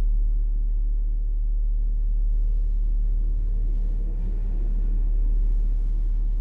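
Deep, steady low drone: one sustained bass tone with a fainter steady hum above it.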